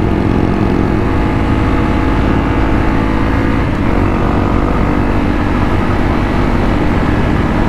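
Motorcycle engine and exhaust running steadily at riding speed, a loud, continuous drone of engine notes.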